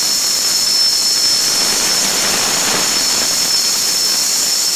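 Logo-intro sound effect: a steady, loud hiss with a thin, high whine running through it.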